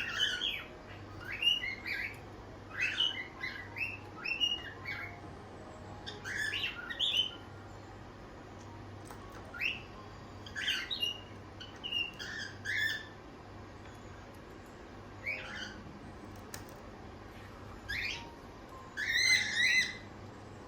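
Cockatiels chirping: short calls that slide up and down in pitch, in clusters every second or two with a few pauses, and a louder run of calls near the end.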